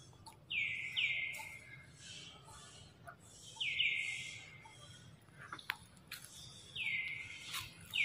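A bird calling: short notes that slide down and then hold, coming in twos about every three seconds. A few faint sharp clicks fall between the calls.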